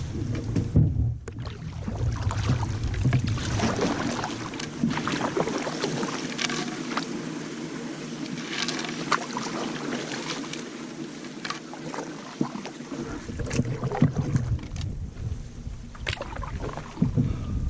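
Canoe paddling: the paddle splashes and drips in the water, with many short sharp splashes and knocks. Wind rumbles on the microphone at the start and again in the last few seconds.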